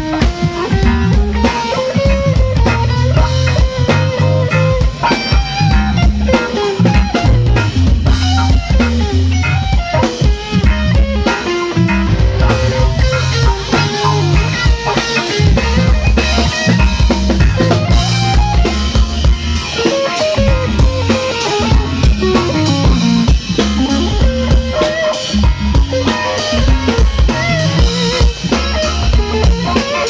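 Live rock band playing an instrumental number: electric guitar and keyboard lines over a steady drum kit groove with bass drum and rimshot strokes.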